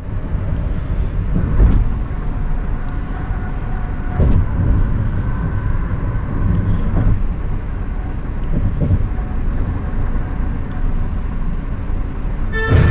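Steady low road and engine rumble inside a moving Honda CR-V's cabin, swelling a few times. Music starts on the car stereo near the end.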